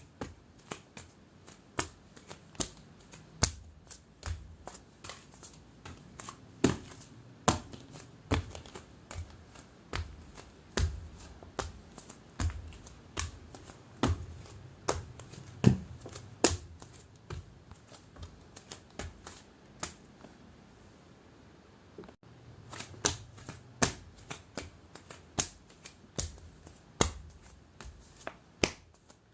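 Footsteps walking at a steady pace, each step a short, sharp impact. The steps grow fainter about two-thirds of the way through and, after a brief break, start up again.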